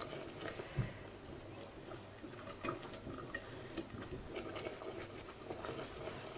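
Thick roux-based white sauce with asparagus broth simmering in a stainless steel pot, with faint, irregular small pops and clicks as a wire whisk stirs it. It is being simmered so the flour cooks out and no longer tastes raw.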